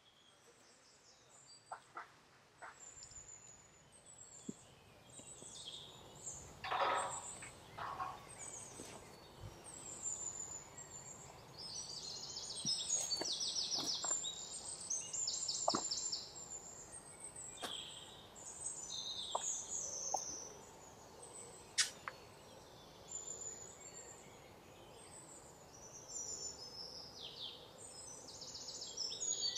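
Small birds chirping and singing, with fast high trills, alongside occasional soft taps and rustles from hands pinching and pressing dough on a floured wooden board.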